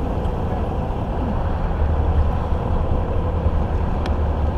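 Boat engine running steadily under way, a low rumble with a faint steady hum, mixed with wind buffeting the microphone.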